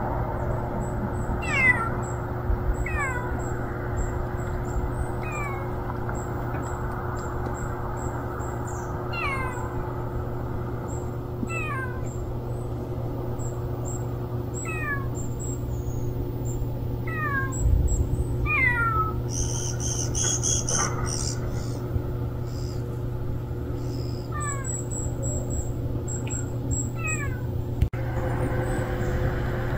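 Stray cat mewing over and over: short, high cries that fall in pitch, one every second or two.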